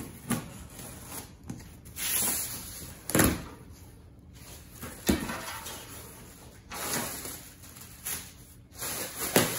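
A cardboard shipping box being opened: a knife slitting the packing tape, the flaps pulled back, and plastic bags and packing rustling, with several sharp knocks.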